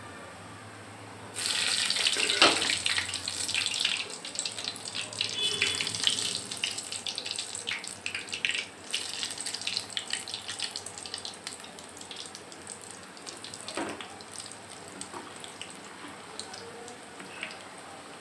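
Gulab jamun dough balls deep-frying in hot ghee. A sudden loud sizzle comes about a second and a half in as fresh raw balls go into the ghee, then crackling that slowly dies down.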